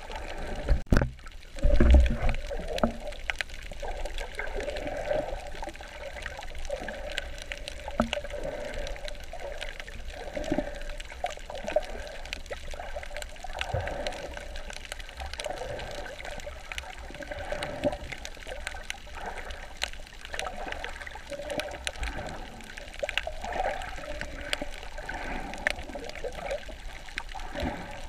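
Water sloshing and bubbling around a snorkeler, full of small crackles, with a few loud low thumps about one and two seconds in.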